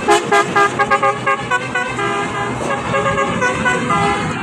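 Basuri telolet horn playing a tune on its several tones: a run of quick toots, about four a second, slowing into longer held notes that change pitch about two seconds in.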